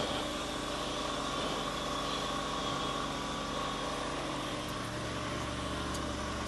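An engine running steadily at idle, with a deeper low hum joining in about five seconds in.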